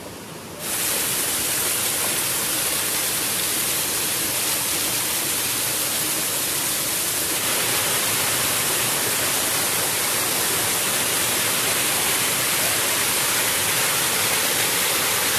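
Waterfall and its rocky cascade rushing: a steady, loud noise of falling, splashing water that comes in suddenly about a second in and holds on unchanged.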